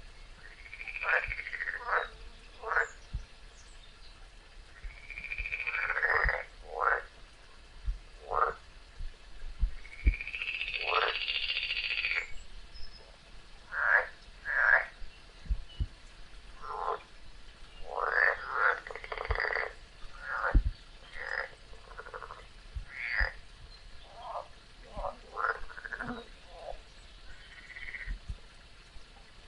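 Frogs croaking: a string of separate, irregularly spaced calls, one after another, several of them arching up and falling back in pitch.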